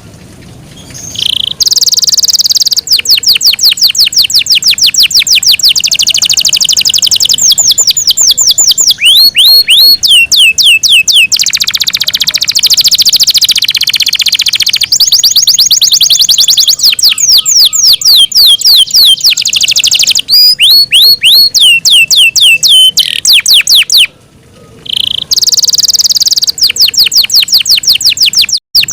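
Yorkshire canary singing a long, loud song of rapid trills and runs of quickly repeated sliding whistled notes, pausing briefly about a second in and again near the end.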